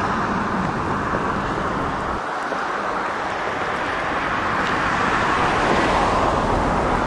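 Steady road traffic noise, the hiss of tyres from passing cars, growing a little louder toward the end.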